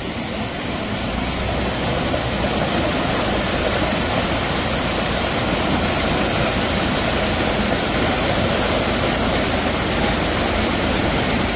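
Muddy floodwater and debris rushing across the road in a steady, loud wash that grows a little louder over the first couple of seconds.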